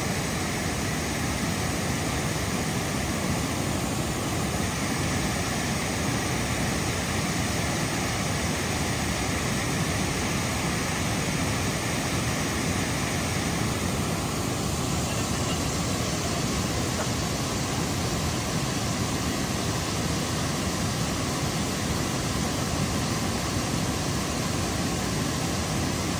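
Steady rush of water pouring through a dam's open floodgates.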